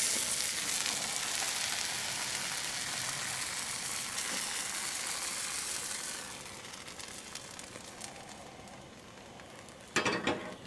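Crêpe batter sizzling as it is poured into a hot buttered crêpe pan, loudest at first and dying down after about six seconds.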